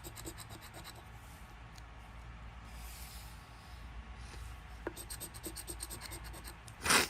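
A scratch-off lottery ticket being scratched with quick, rapid scraping strokes, in a spell at the start and another from about five seconds in. Just before the end comes one loud, sudden burst from the scratcher's nose and throat, which the scratcher puts down to the usual sinus trouble.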